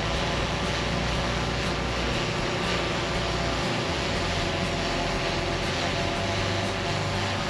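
DJI Phantom 3 Pro quadcopter's four propellers and motors buzzing steadily in flight, a hum of several steady pitches over a hiss.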